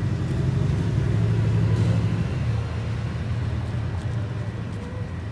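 Steady low rumble of a motor vehicle engine, easing a little about halfway through.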